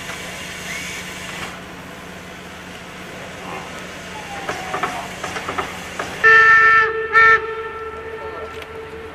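A standing steam locomotive hissing steam, with a few metallic clanks; about six seconds in, a steam locomotive whistle sounds a chord of several tones, one long blast and then a short one.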